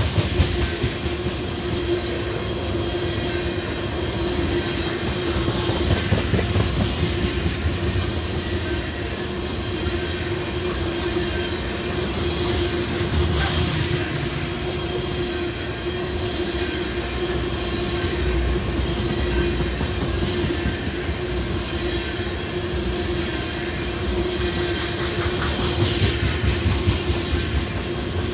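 Loaded freight train of tank cars rolling past close by: steel wheels rumbling and clacking over the rails, with a steady humming tone throughout and an occasional sharp clank.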